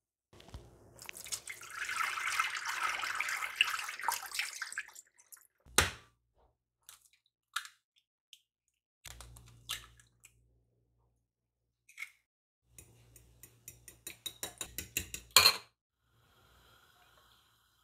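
Water swishing around rice in a glass bowl for about four seconds. Then a few sharp knocks on glass, and a fork whisking eggs in a small glass bowl: quick ticks for about three seconds, ending with one loud knock.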